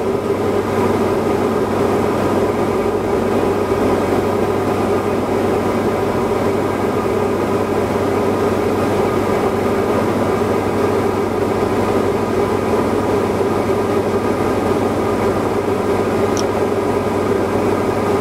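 Diamond DA40NG's Austro AE300 turbodiesel engine and propeller droning steadily at cruise power, heard inside the cockpit.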